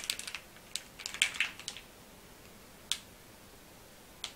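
Plastic wrapper of a packet of dried soba noodles crinkling in short rustles as it is handled and turned over during the first two seconds, then two faint ticks.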